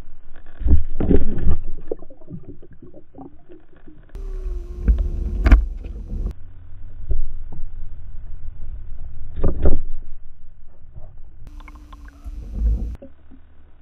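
Muffled underwater sound from a submerged camera: low rumbling water noise broken by heavy thumps, about a second in, around five and a half seconds, near nine and a half and again near the end, with a faint steady hum in between.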